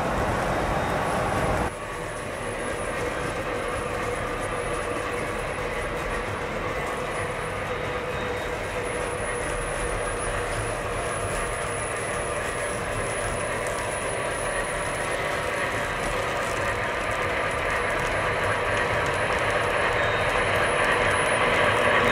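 O scale model train (an MTH RS-3 diesel locomotive with a long string of freight cars) running on MTH ScaleTrax track: a steady rumble of wheels rolling on the rails, with a faint motor hum. It drops suddenly about two seconds in, then grows steadily louder near the end as the train comes closer.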